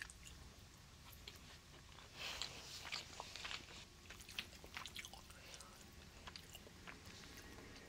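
Faint chewing of food, with light clicks of wooden chopsticks picking at a plastic bento tray.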